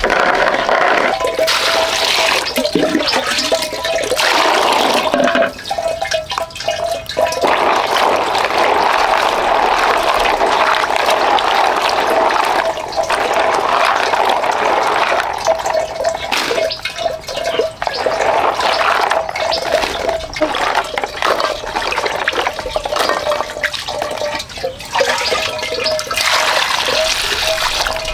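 Water running and splashing continuously, with a steady faint tone underneath.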